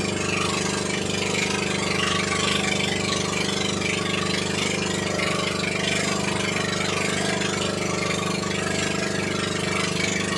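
Engine of a small outrigger fishing boat running steadily at an even speed.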